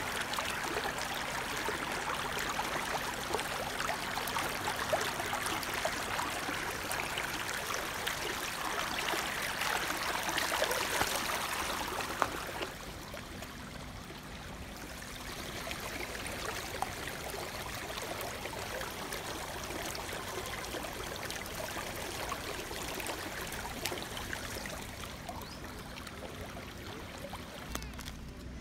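Shallow spring-fed stream running and rippling over rocks, a steady babble of water. It is louder for the first twelve seconds or so, then softer.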